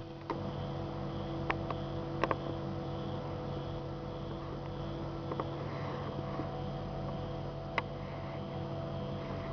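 Stepper motors of a small hobby CNC machine running as it draws a circle: a steady hum of several tones that shift about halfway through as the axes change speed, with a few sharp clicks.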